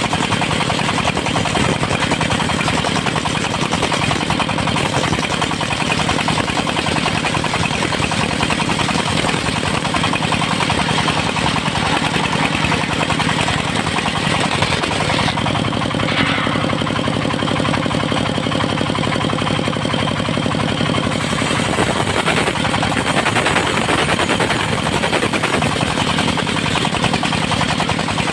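Portable circular sawmill running, its engine beating out a rapid knock under the noise of the saw as it cuts teak into boards. For several seconds in the middle the highest part of the sound drops away and the engine's tone stands out more.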